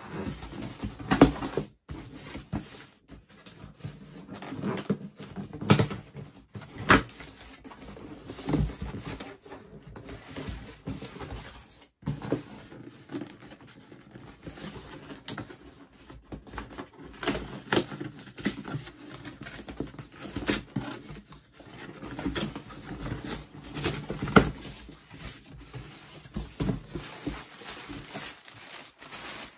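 Handling and tearing open a cardboard shipping box: irregular taps, knocks and scrapes on the cardboard and the tearing of its flap, with a plastic bag crinkling near the end.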